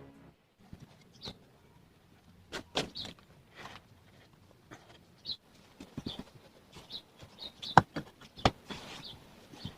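Scattered, irregular knocks and taps, the loudest about eight seconds in, with short high chirps from small aviary birds between them.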